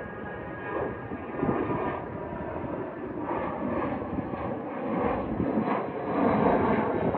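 Cessna Citation Latitude business jet's twin Pratt & Whitney Canada PW306D1 turbofans at climb power: a continuous rumble of jet noise from a jet climbing away after takeoff, wavering in loudness.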